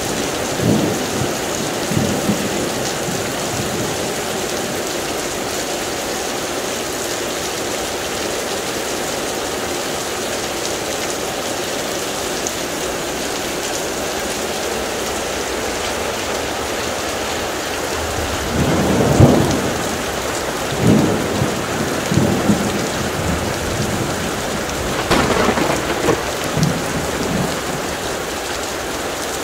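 Heavy rain falling steadily, with thunder rumbling over it: a short rumble at the start, the loudest clap about two-thirds of the way through, and a sharper crack followed by further rumbles near the end.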